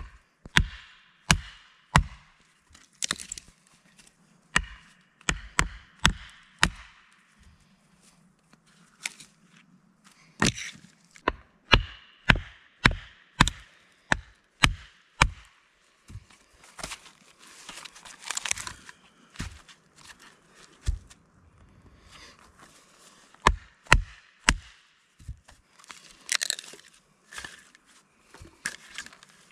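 Batoning firewood: a wooden baton striking the spine of a knife driven into a log round, sharp knocks in runs of several blows with short pauses between. In places the wood cracks and tears as the round splits.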